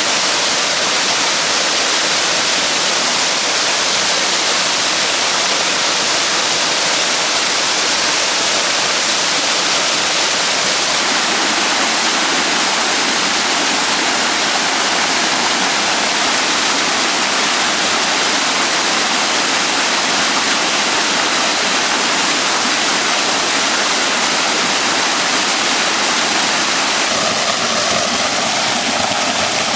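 Small waterfall in spate after heavy rain, pouring into a loch with a steady, loud rush of water. A lower rumble joins in near the end.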